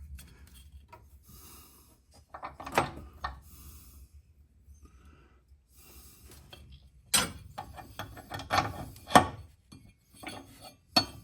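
Scattered clicks, taps and scraping of small metal parts, washers and the tensioner pieces, being handled and fitted together by hand, with a run of sharper knocks about seven to nine seconds in.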